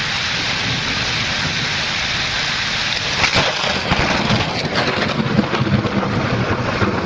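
Heavy rain hissing steadily. About three to four seconds in, a close lightning strike gives a short crack, followed by low rumbling thunder.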